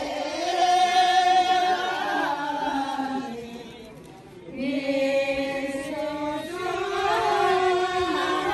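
Voices singing a slow chant-like song in long held notes, with a pause about four seconds in before the singing resumes.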